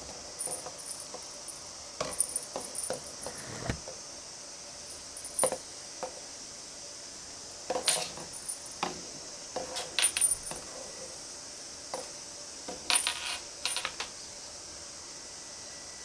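Small metallic clinks and jingles in short, irregular bursts, with light taps, over a steady hiss.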